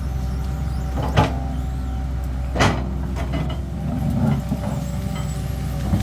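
CAT 320D excavator's diesel engine running steadily under work, with two sharp knocks, about one and two and a half seconds in.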